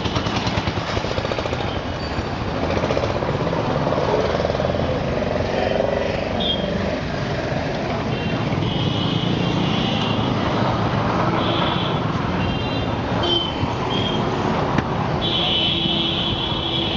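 High-pitched electronic beeps of uneven length, a short one about six seconds in, then a run of longer and shorter ones, the last held longest near the end. Under them runs a steady vehicle rumble.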